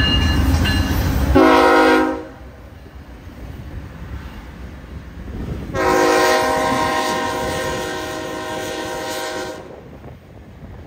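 Lead diesel locomotive's multi-chime air horn sounding a short blast and then, about four seconds later, a long one, over the low rumble of the train, which is heaviest at the start.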